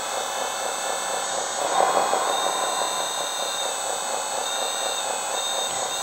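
1/14 scale RC hydraulic tracked loader working: the electric hydraulic pump whines as the bucket is lowered, its tone shifting a few times, over the steady simulated diesel engine sound from the loader's sound module.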